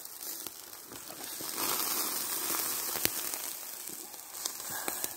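Lula kebabs sizzling and crackling on a grill over hot charcoal, a steady hiss that swells in the middle, with a sharp pop about three seconds in and another near the end.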